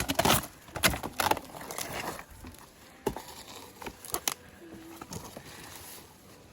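Dry birch bark crackling and snapping as it is pulled off and handled, in a few sharp cracks over a light rustle.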